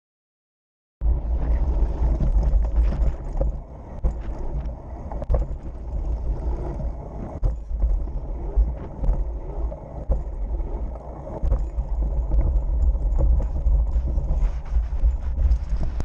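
BMX bike ridden over a dirt track, heard from a camera mounted on the bike: a loud, steady rumble of tyres on dirt and air on the microphone, with many sharp knocks from bumps. It starts about a second in and cuts off suddenly at the end.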